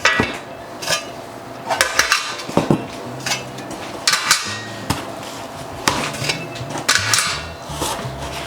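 Parts of a raised garden bed kit knocking and clinking together as they are picked up and handled, in a run of irregular sharp knocks.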